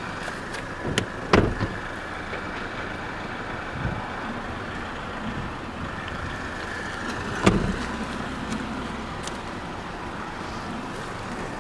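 A steady rushing background noise, broken by two sharp knocks, one about a second in and another about seven and a half seconds in.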